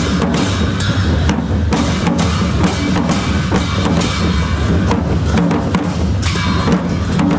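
Several Newari dhimay drums played together: cane sticks with curled ends strike one head while bare hands slap the other, in a dense, steady drumbeat.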